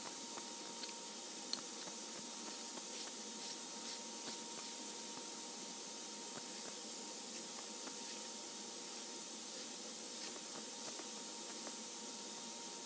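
Steady background hiss with a faint steady whine, and a few faint light clicks and rubs from the aluminum touch-probe body and nose cap being handled and threaded together by hand.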